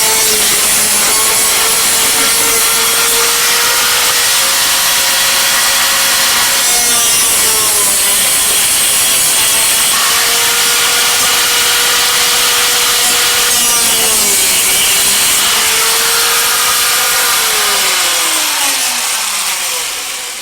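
Handheld electric power tool cutting a rectangular opening in sheet-metal ductwork for a zone damper, its motor running at a steady high pitch that sags twice under load. Near the end the motor winds down as the cut is finished.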